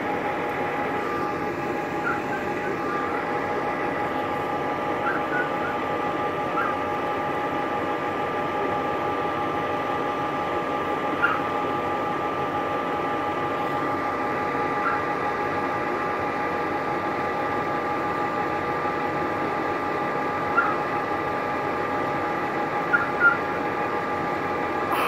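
Fire engine idling: a steady mechanical hum with several fixed tones over a broad rumble, with a few brief faint chirps now and then.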